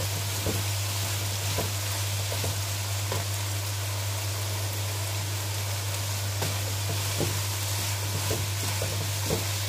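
Diced chicken, peas and carrots sizzling in hot oil in a karahi, stirred with a wooden spatula that taps and scrapes the pan every second or so. A steady low hum runs underneath.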